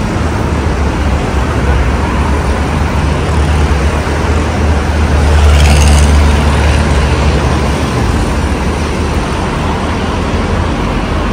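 Steady road traffic from the busy road below, with a heavy vehicle's low rumble swelling in the middle and a short hiss about six seconds in.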